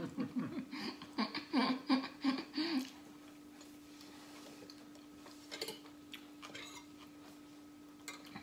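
Laughter for about the first three seconds, then a quiet room with a steady low hum and a few faint clicks.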